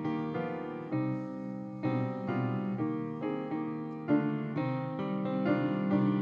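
Upright piano played with both hands: a steady run of full chords, a new one struck about every half second.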